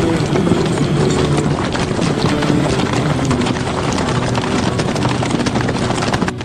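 Horses galloping in a mass, a dense continuous clatter of hoofbeats, as in a cavalry charge.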